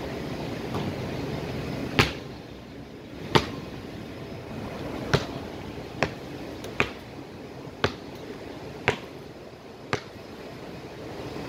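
Eight sharp knocks, roughly a second apart, over a steady rushing background of wind or ventilation.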